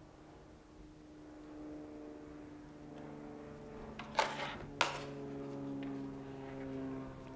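Parts and tools handled on a repair bench: two sharp clicks about half a second apart, a little over four seconds in, over a steady background hum with a few tones drifting slowly in pitch.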